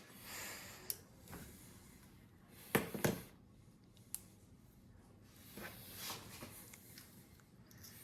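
Hands handling parts during 3D printer assembly: a few small clicks, a sharp double knock about three seconds in, and light rustling.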